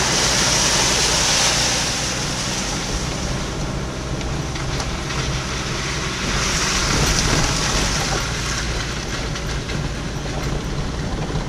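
Car driven along a flooded, potholed dirt road, heard from inside the cabin: steady engine and tyre rumble with rattling over the bumps. Water hisses up against the car as the tyres run through puddles at the start and again about halfway.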